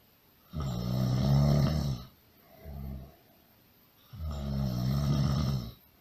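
Loud snoring: two long snores of about a second and a half each, with a shorter, quieter breath between them.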